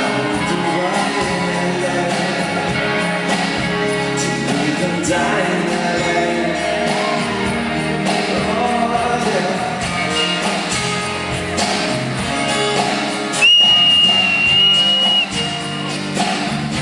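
Live rock band playing with singing, amplified through a concert PA. About thirteen seconds in, a loud, shrill whistle holds one high pitch for under two seconds over the music.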